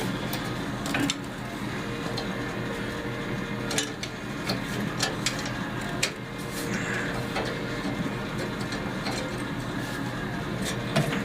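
Scattered clicks and metallic knocks from tools and parts being handled while a riding mower's engine cover is taken off, over a steady low hum.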